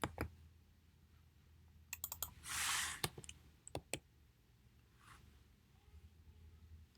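Scattered computer keyboard and mouse clicks as coordinate values are typed in: one just after the start, a quick cluster about two seconds in, a few more around three to four seconds, and a short hiss a little after two and a half seconds.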